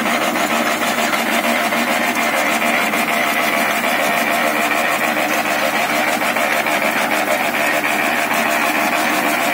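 Paddy rice dryer running: a steady mechanical drone with a fast, even rattle and a faint high whine.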